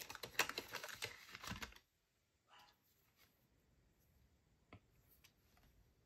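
Paper banknotes being slid and tapped into a clear plastic binder sleeve, rustling and clicking densely for about two seconds, then stopping suddenly. Afterwards near quiet, with a couple of faint light taps of a stylus on a tablet screen near the end.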